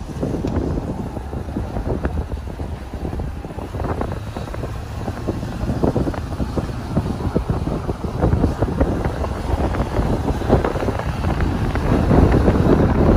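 Wind buffeting a phone's microphone: a gusty low rumble that grows louder near the end.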